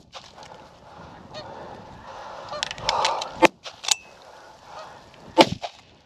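Snow geese honking, broken by a few sharp cracks, the loudest one near the end.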